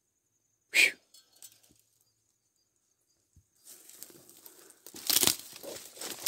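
Dry twigs and brush rustling and snapping as someone pushes through leafless scrub: one sharp snap about a second in, then steady rustling from about halfway, with louder crackles near the end.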